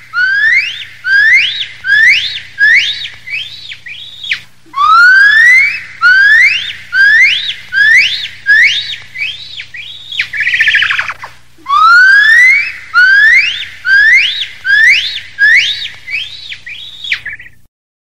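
Gibbon singing: three series of whistle-like rising whoops. Each opens with a long upward glide and then quickens into shorter notes that rise and fall, with a warbling trill between the second and third series.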